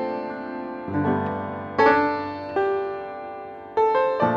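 Background piano music: chords struck about once a second, each ringing and fading before the next.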